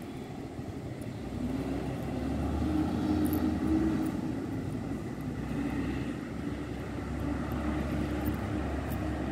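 Bus engine running, a low rumble with a steady hum over it that grows louder about a second and a half in and then holds.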